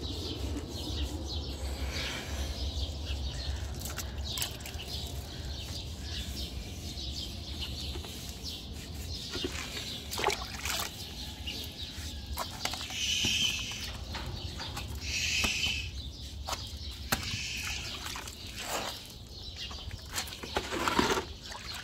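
Water splashing and dripping as a sponge is dipped in a bucket and squeezed out over a horse's legs, washing it down after a ride, in scattered irregular splashes. A bird chirps twice around the middle.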